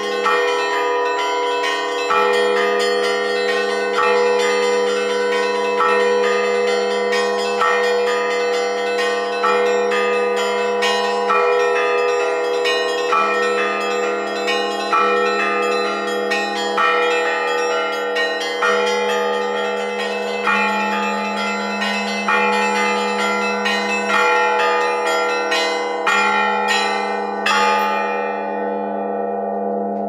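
Russian Orthodox bell ringing on a small belfry's bells: a rhythmic, continuous peal of several bells struck by rope-pulled clappers, with a heavier stroke about every two seconds. The strikes stop near the end and the bells ring on and fade.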